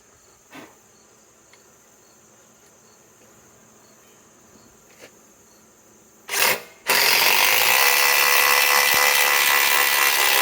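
Ryobi PSBIW25 compact impact wrench, briefly triggered about six seconds in and then hammering steadily for about four seconds as it drives a fastener home.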